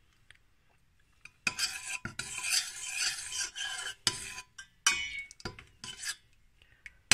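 Metal spoon stirring sauce in a stainless steel pot, scraping and clinking against the pot's sides. The stirring starts about a second and a half in, with a few sharper clinks along the way.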